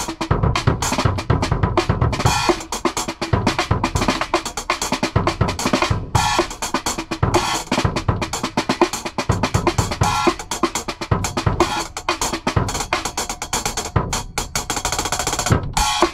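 Compact drum kit played in a dense stream of strokes: small bass drum, snare and a ringing cymbal, heard inside the van.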